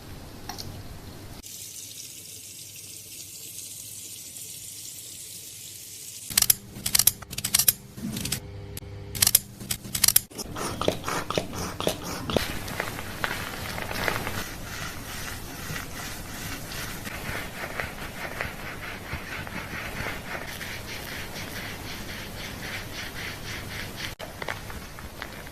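Water splashing and running over hair during a hair wash, the rinse: a few loud, uneven splashes about six seconds in, then a steady spray of water.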